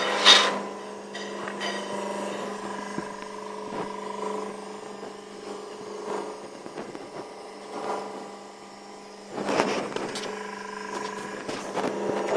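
PET bottle baler's hydraulic power unit humming steadily while the press stands closed, with a loud clatter about half a second in and another after about nine seconds as the bale is wired off by hand.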